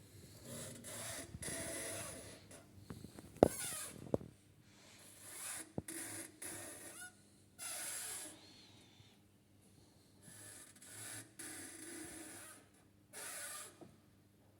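Renault Duster 1.6 H4M's clutch release bearing area squeaking and rasping in about eight short bursts of under a second each, with a sharp click about three and a half seconds in. The squeak is from a newly replaced release bearing and comes on when cold. The owner questions the clutch pressure plate, and the service suggests the clutch damper may be to blame.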